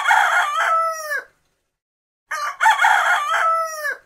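Rooster crowing twice. The first cock-a-doodle-doo is already under way and ends in a long note falling in pitch. A second, identical crow starts about two seconds later.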